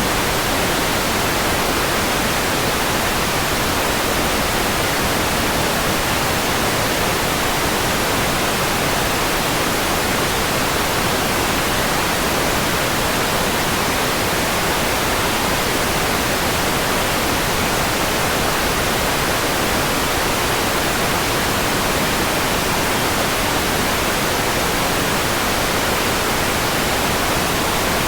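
Steady synthetic white noise: an even, unchanging hiss across the whole range.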